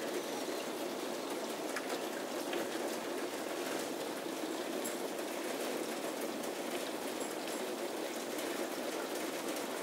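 Heavy rain pouring down in a steady hiss, with a few scattered drop ticks.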